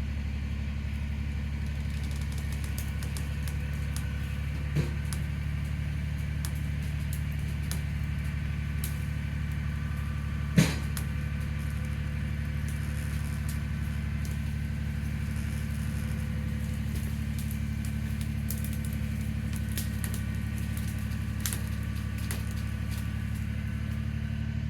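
Kubota BX23S compact tractor's three-cylinder diesel engine running steadily under load while dragging a log, with a couple of sharp cracks of snapping wood, the loudest about ten seconds in.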